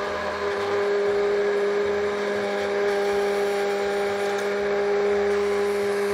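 Electric immersion (stick) blender running at a steady speed, its motor humming at one constant pitch as the blade churns canned asparagus and its liquid into a purée in a plastic jug.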